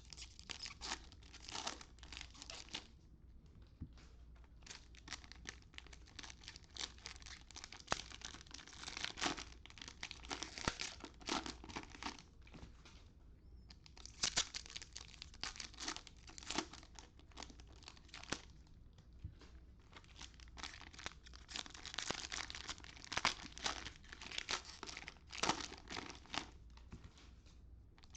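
Cellophane wrappers of Panini Prizm Draft Picks cello packs crinkling and tearing as the packs are ripped open by hand, with a couple of short pauses.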